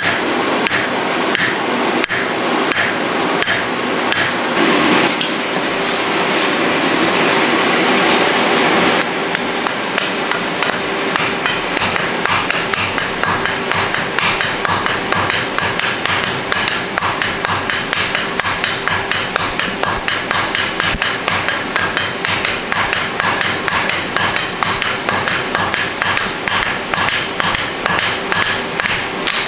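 Rapid, evenly paced hammer blows on a white-hot steel block being forge welded onto an anvil body. For about the first nine seconds a steady rushing noise runs under the blows, then stops.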